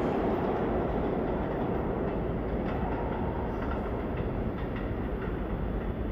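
New York City Subway train running through the station, a steady rumble that slowly fades, with a few faint wheel clicks over rail joints.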